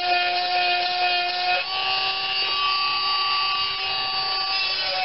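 A 12-volt electric chainsaw sharpener's small motor and grinding stone running with a steady whine while grinding a chain's cutter tooth. About a second and a half in, the pitch of the whine shifts.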